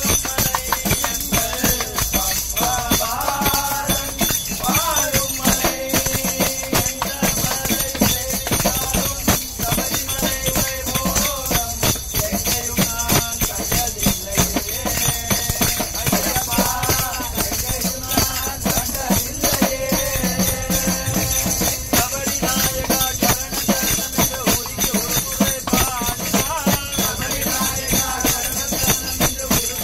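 Group of devotees singing an Ayyappa devotional bhajan, carried by a fast, steady jingling of hand-shaken percussion.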